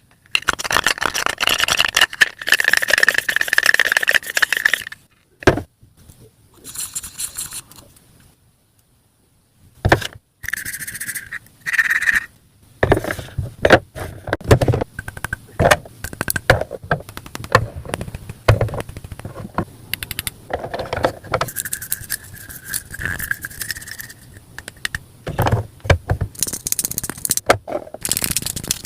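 Small plastic toy kitchen pieces being handled: rapid clicks, clatters and scraping, with a near-silent pause of about two seconds midway.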